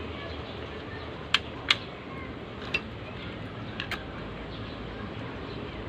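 A few sharp clinks, as of tools or metal engine parts being handled during engine assembly: two loud ones close together about a second and a half in, then a single one and two lighter ones, over a steady background noise.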